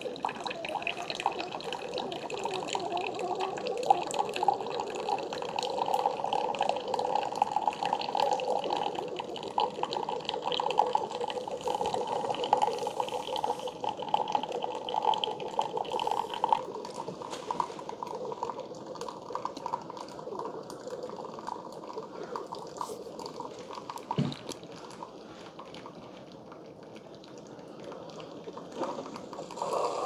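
Keurig K-Supreme Plus coffee maker brewing a K-Cup pod: a steady stream of hot coffee splashing and filling into a glass mug. It grows quieter in the second half, with a short knock about 24 seconds in.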